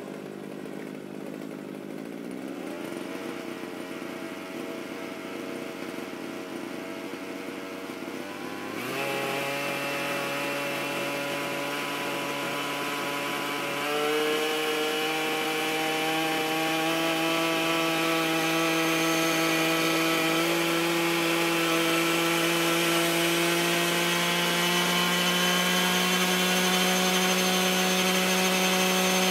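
Small two-stroke gasoline engine of a T-Rex 700 gas RC helicopter running as the rotor spools up on the ground. The engine note jumps up in pitch and loudness twice, about a third of the way in and again near halfway, then keeps climbing slowly.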